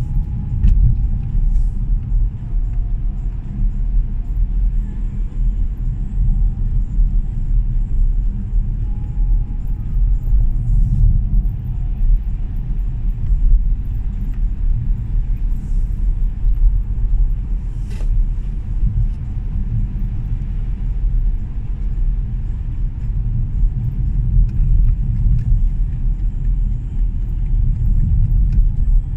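A car driving along a road: a steady low rumble of engine and tyre noise.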